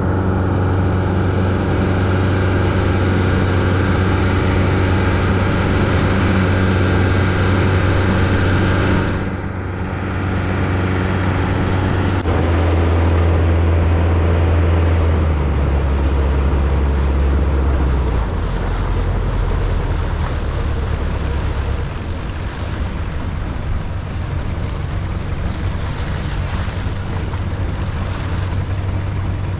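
Long-tail boat engine running steadily at speed, with water rushing past the hull. About twelve seconds in the sound changes abruptly, and the engine's low hum then steps down in pitch as the boat throttles back and slows.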